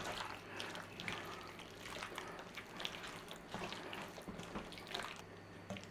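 Hands mixing cubed raw chicken in a thick yogurt and lemon-juice marinade in a bowl: faint, irregular wet squishing.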